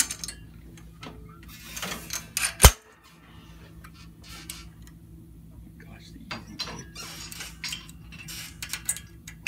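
Valve keepers being knocked free from an Aermacchi Sprint SS 250 cylinder head with a hand-held keeper removal tool: scattered metallic clicks and clinks, with one sharp, loud metal knock about two and a half seconds in.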